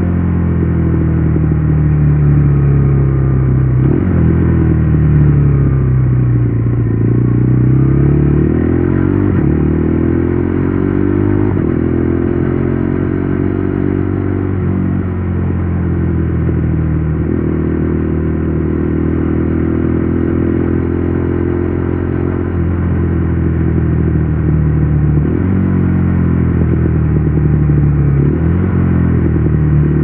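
KTM Duke 390 Gen 3's single-cylinder engine through an Akrapovic exhaust, heard from the rider's seat while riding: the engine note rises and falls with the throttle, broken by several gear changes.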